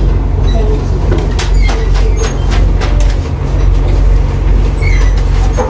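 Steady low machine hum with scattered light clicks.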